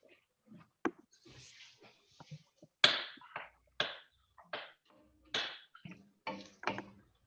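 Kitchen utensils knocking and tapping against pots and pans: about seven short, sharp knocks spread unevenly, with a brief hiss about a second in.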